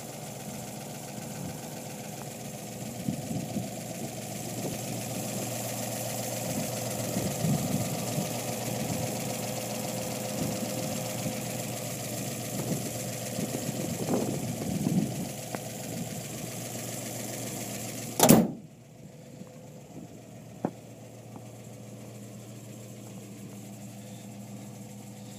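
1959 Ford Fairlane 500's engine idling steadily with the hood open. About 18 seconds in there is a single loud slam, likely the hood shutting. After it the idle goes on, quieter and muffled.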